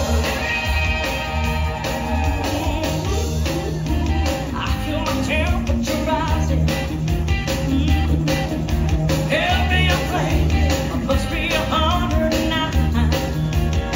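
Upbeat pop-rock song with singing, guitar and a steady drum beat, played over a theatre's speakers as dance music.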